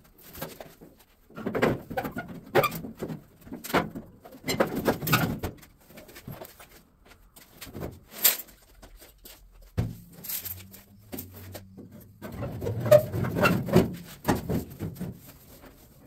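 A loose steel cab door from a 1953 Chevy pickup being handled and offered up to the cab: three bouts of metal scraping, clunks and knocks. A low, steady hum-like tone lasts about two seconds near the middle.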